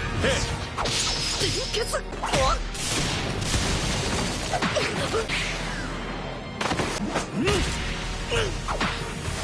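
Animated battle sound effects: a dense run of whooshes and hard hits with crashing debris, over background music.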